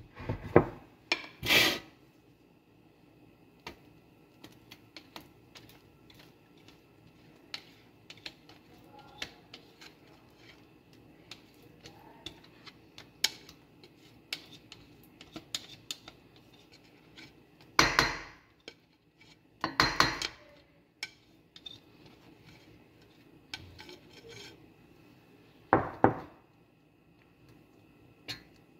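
Utensils clinking and scraping against a bowl and a round metal cake pan as cake batter is transferred: scattered light clicks and taps, with a few short, louder scraping clatters, two near the start and three in the last third.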